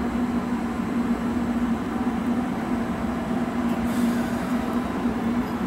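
JR Kyushu 813-series electric train standing at the platform, its onboard equipment running with a steady low hum.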